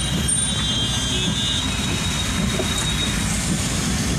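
Steady low rumble of a vehicle driving through heavy rain, road and wind noise heaviest in the low end, with a thin high squeal that fades out about a second and a half in.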